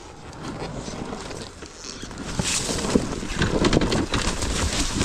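A dirt bike's engine running with water splashing, growing louder about halfway through as it pushes along the creek.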